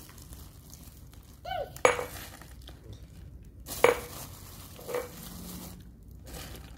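Crushed ice and a zip-lock bag being handled in a plastic tub: a short squeak, then two sharp clinks about two seconds apart and a softer knock a second later, with light rustling of plastic and ice between.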